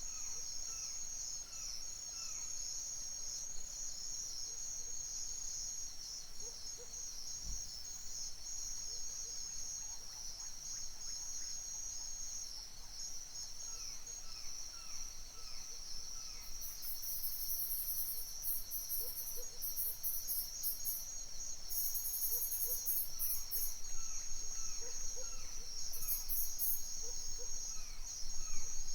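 Forest dawn chorus: a steady, dense high trill of crickets and other insects, with scattered short bird chirps. From about halfway through, bursts of very high, rapidly pulsing insect calls come and go.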